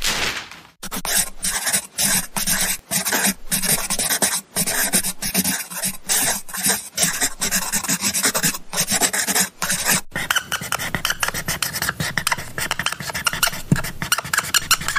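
Off-screen rummaging: a rough rustling and scraping of things being shuffled about and put away, broken by many short gaps.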